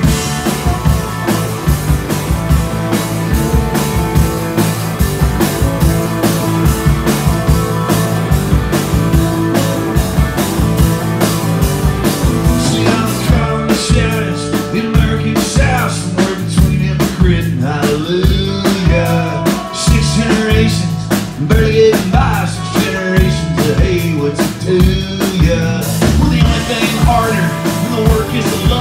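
Live band playing a country-rock song: drums, strummed acoustic guitar and a Nord keyboard over a steady beat. About halfway the cymbals drop back and a male voice comes in singing.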